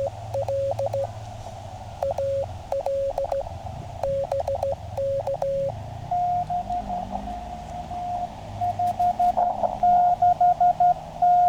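Morse code tones of a CW contact on a QCX mini QRP transceiver: one keyed tone sends for about the first five and a half seconds, then a slightly higher-pitched tone answers with faster keying. This is an on-air exchange of call signs and signal reports.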